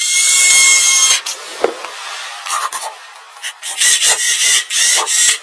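A hand tool scraping or rasping wood in strokes. A loud scrape with a thin squeak opens it, then lighter scrapes and knocks, then a quick run of strokes near the end.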